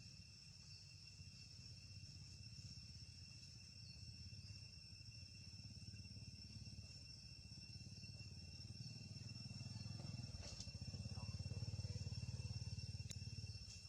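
Faint, steady high-pitched trilling of insects in the background, under a low rumble that grows louder about ten seconds in.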